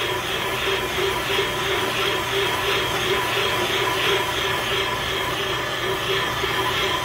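Valve-seat machine's spindle turning a counterbore cutter into a cylinder head, cutting the pocket for a new valve seat: a steady motor hum and whir with a scraping cut that pulses a couple of times a second.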